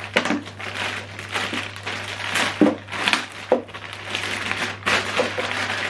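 Plastic packaging rustling and crinkling in irregular bursts, with a few sharper crackles, as boxed accessories are handled.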